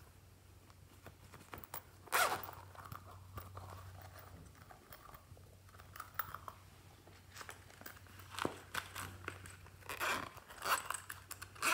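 Hands handling and squeezing small yellow rubbery duck toys, making scattered crinkling, crunching clicks. There is a sharp one about two seconds in and a dense run near the end, over a faint steady low hum.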